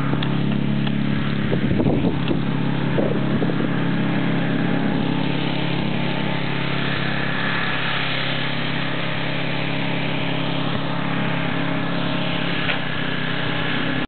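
A steady low motor drone, like an engine running, holds throughout over a constant hiss. About two seconds in, a few footsteps crunch in the snow.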